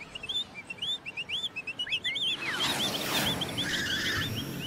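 Cartoon ambience of birds chirping in quick rising and falling tweets, with a whoosh swelling up and fading away about two and a half seconds in.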